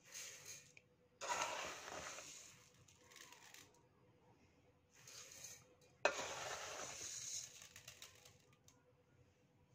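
Raw rice grains poured from a small cup into a stainless steel bowl, as the rice is measured out cup by cup. There are two strong rushes of grains, about a second in and about six seconds in, with shorter, quieter rustles of the cup scooping rice in between.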